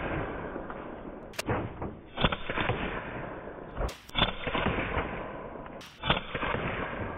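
A .25 caliber Evanix Viper PCP air pistol firing three shots about two seconds apart, each a sharp crack. Each shot is followed by the pellet striking a full soda can, bursting it so it sprays and knocking it off the board. The can hits are the loudest sounds.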